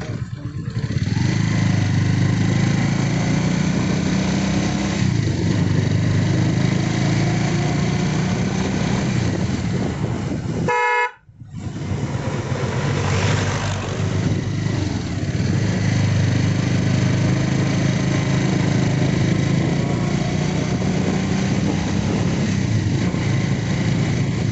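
Motorcycle engine running steadily while riding. About eleven seconds in, a short horn beep sounds, followed by a brief drop-out in the sound.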